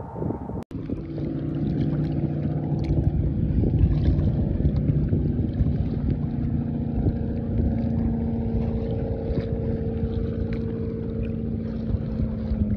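A motor's steady hum with a few held tones, over wind on the microphone and light splashing of water as a striped bass is held at the surface.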